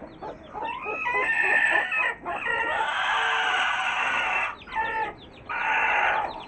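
Week-old chicks peeping in quick, high, falling cheeps, with a long harsh call from an adult chicken lasting about two seconds midway and a shorter one near the end.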